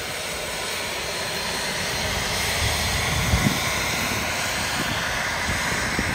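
Airplane engines passing, a steady roar that swells to its loudest around the middle and then eases slightly. A few short low thumps come about halfway through.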